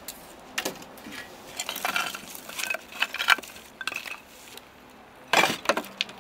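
Broken clay tile shards clinking and scraping as they are picked out of fire rubble and loaded into a wheelbarrow: a run of separate clatters, the loudest a little after five seconds in as the pieces land in the barrow.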